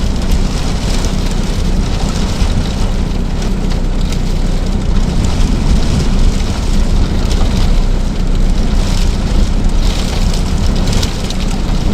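Strong blizzard wind buffeting the microphone: a loud, continuous low rumble that flutters with the gusts, over a windy hiss.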